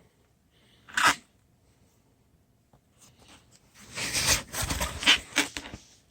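Packing material being handled and torn at during unboxing: one short sharp rustle about a second in, then a couple of seconds of irregular tearing, rustling and scraping as packing is pulled away.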